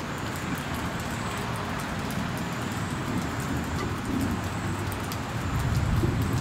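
Wind rushing over the microphone, a steady noise with uneven low buffeting that grows stronger near the end.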